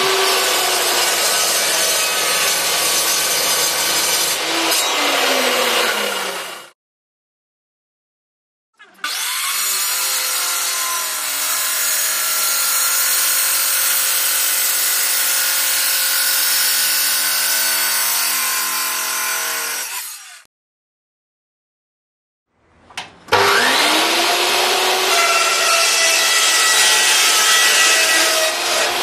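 Marcrist Extreme 355 chop saw, a 2300-watt motor driving a 355 mm diamond blade, cutting dry through metal stock in three separate, steady cuts with dead silence between them. The first cut, through a solid aluminium bar, ends about seven seconds in. The second, through a rusty steel pipe, runs from about nine to twenty seconds in. The third, through an orange tube, starts with a rising tone about twenty-three seconds in.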